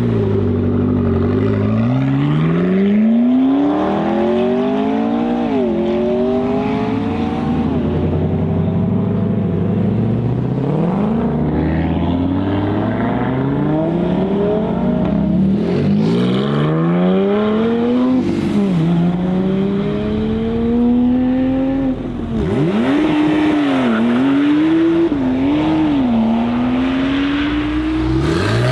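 Sports car engines accelerating hard through the gears, the pitch climbing and then dropping sharply at each upshift, several pulls in a row. Near the end an engine is revved in short blips, its pitch jumping up and down.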